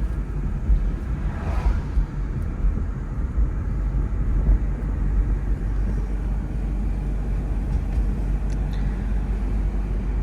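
Steady low rumble of a car being driven: engine and road noise heard from inside the car.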